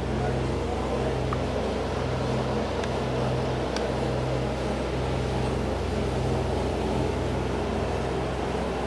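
Suzuki 4x4's engine idling steadily, a constant low hum with fine rapid pulsing, with a few faint ticks.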